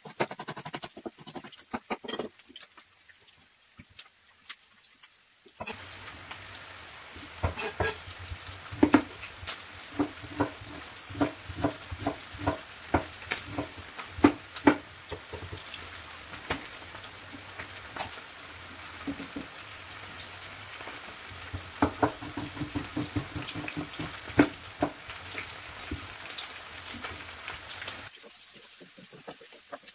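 Knife tapping on a wooden cutting board as a green chili is chopped. About six seconds in, a pan of chicken liver and onions starts sizzling steadily, with a run of knife strokes on the board as tomatoes are sliced; the sizzle stops near the end.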